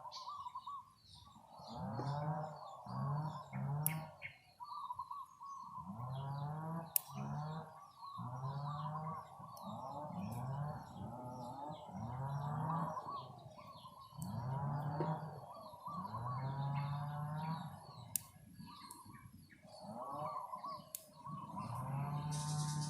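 Background nature recording: small birds chirping over a low animal call repeated every second or two. A few sharp clicks stand out, about 4, 7, 18 and 21 seconds in.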